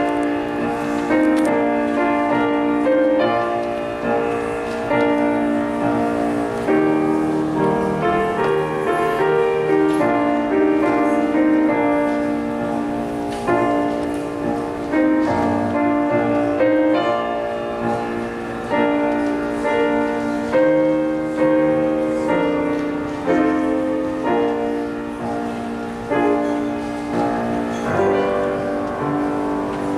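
Slow instrumental piano music, with chords struck every second or two and left to die away.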